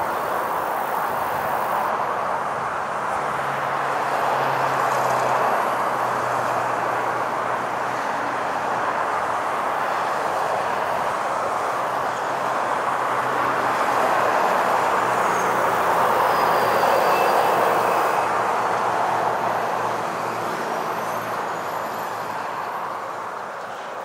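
Road traffic passing by on a country road: a continuous rush of tyre and engine noise that swells as vehicles go by, loudest about two-thirds of the way through, then easing off near the end.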